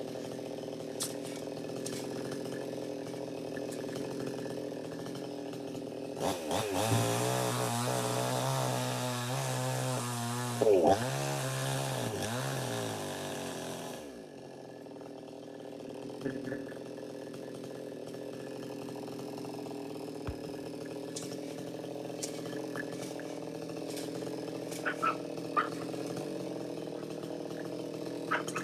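Chainsaw engine running at idle, revved hard for about eight seconds midway, as in a cut into coconut wood, then dropping back to idle.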